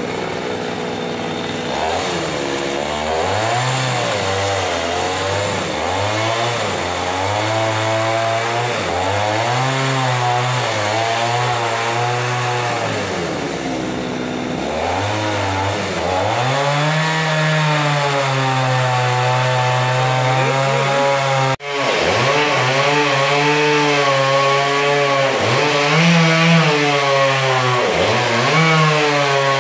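Two-stroke chainsaw ripping lengthwise through a large log, the engine's pitch sagging under load and climbing again over and over as the cut goes on. It cuts out for an instant about two-thirds of the way through.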